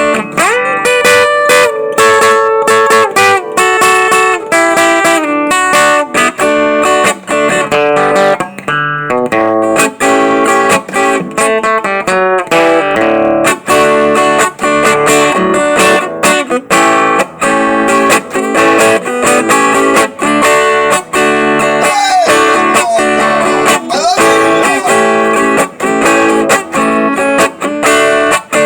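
Acoustic guitar (violão) played solo: a continuous stream of plucked single notes and chords, with a few bent notes past the middle and near the end.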